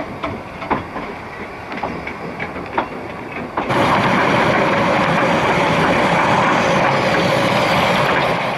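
Steam train running, heard from one of its carriages: wheels clicking over the rail joints. About four seconds in, a louder steady rushing noise with a faint held tone takes over.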